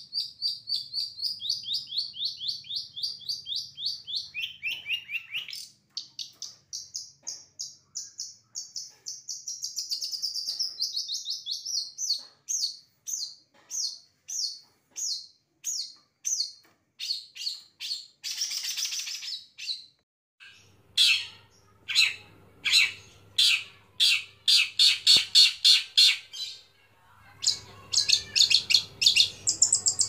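Long-tailed shrike (cendet) singing: long runs of fast repeated high chattering notes, several a second, that shift up and down in pitch, with a short break about two-thirds of the way through and another near the end.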